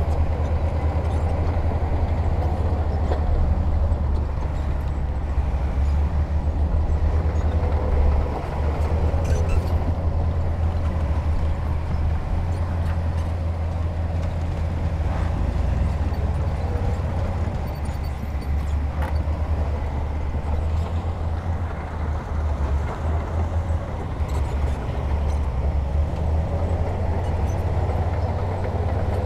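Heavy diesel earthmoving machinery running steadily, a deep engine rumble with a few faint knocks.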